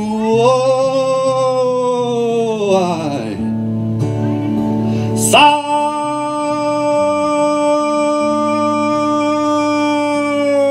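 A man sings long, held, wordless notes live with an acoustic guitar. One note slides down and fades about three seconds in, then a new note starts sharply and is held steady for about five seconds.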